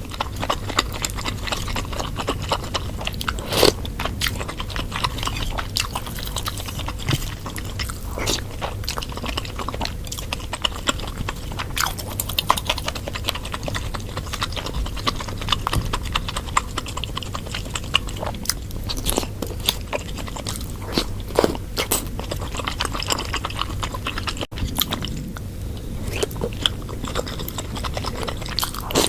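Close-miked mukbang chewing and biting of spicy bakso meatballs, a dense run of small sharp mouth clicks and crunches.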